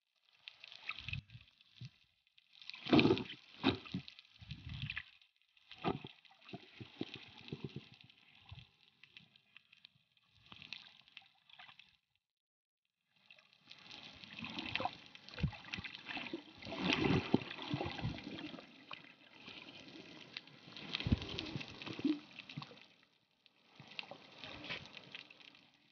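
Water sloshing and gurgling over the microphone of a waterproof compact camera held underwater while snorkelling. It comes in irregular bursts and cuts out for about a second midway.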